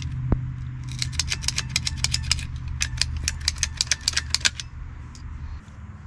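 Ratcheting hand tool clicking as it works on blue 3/4-inch PEX pipe: two quick runs of sharp clicks, about five a second, with a short pause between them.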